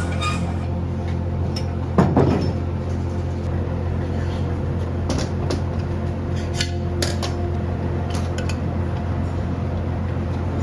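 Steady low electric hum of workshop machinery, with scattered clinks and knocks of metal parts being handled. The loudest knock comes about two seconds in.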